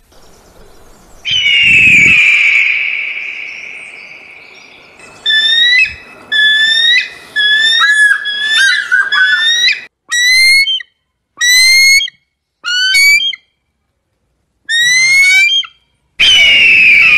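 Eagle calls: a long, high-pitched scream that fades out over a few seconds, then a string of short, rising, whistled notes, closely spaced at first and then further apart, and a second long scream near the end.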